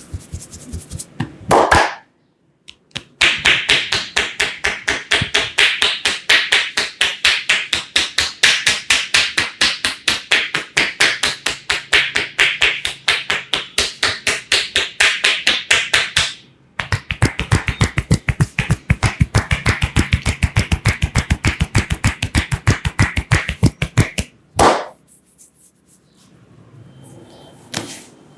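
A barber's hands rapidly striking a client's head or back in percussive massage, in two long runs of fast, even slaps with a short break between them, the second run deeper in tone.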